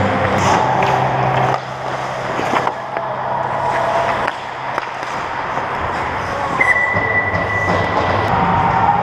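Ice hockey play right at the goal: skates scraping and carving the ice, with the clacks and knocks of sticks and puck. About two-thirds of the way in a steady whistle sounds for about a second and a half, the referee's whistle stopping play as the goalie covers the puck.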